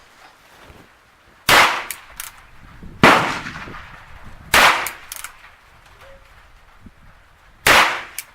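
Four shots from a Ruger New Bearcat single-action .22 LR revolver, the first three about a second and a half apart, the last after a three-second pause, each a sharp crack followed by a few fainter clicks.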